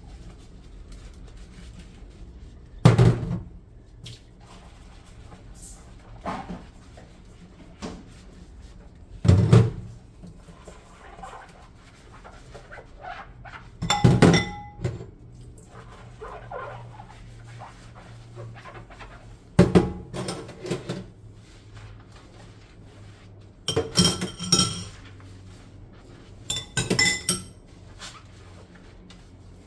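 Dishes being handled and set down one at a time: a string of separate clatters and clinks spread a few seconds apart, some of them ringing briefly like glass or ceramic.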